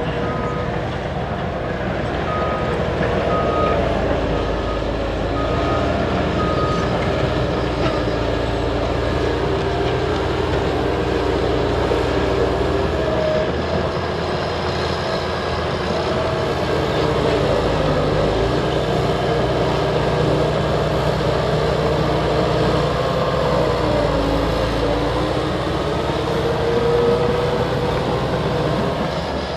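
Liebherr crawler bulldozers' diesel engines running under load while pushing earth, their pitch rising and falling. A reversing alarm beeps about once a second for the first seven seconds or so.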